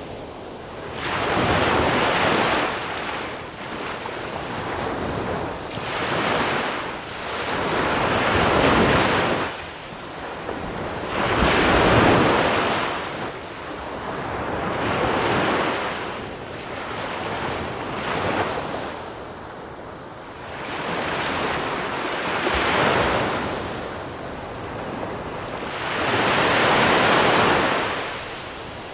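Sea waves rolling onto a small-pebble beach, each one swelling into a rush of water over the pebbles and then fading, about every three to four seconds.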